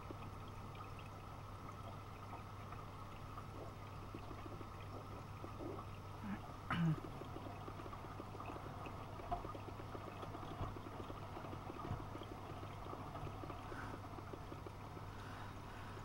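Miele front-loading washing machine in its first rinse, the drum turning a soaked duvet with water sloshing and splashing over a steady low hum. A brief louder thump about seven seconds in, with a few softer knocks later.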